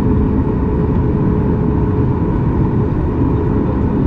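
Steady jet-engine noise of a Boeing 737 MAX 8's CFM LEAP-1B engines, heard inside the cabin: a loud, even rumble with a few steady hum tones over it.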